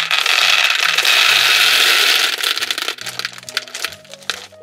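Small plastic beads pouring out of a plastic bag into a toy drawer: a dense rattling rush that stops a little past two seconds in, followed by scattered clicks of single beads as the bag is emptied.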